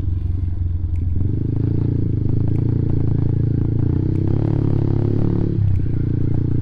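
Motorcycle engine running steadily while under way, its note shifting briefly a little past the middle before settling again.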